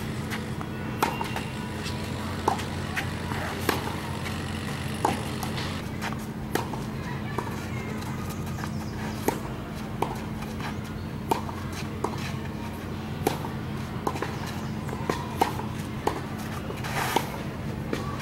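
Tennis balls struck back and forth with racquets in a clay-court baseline rally: a sharp pop every second or so, over a steady low hum.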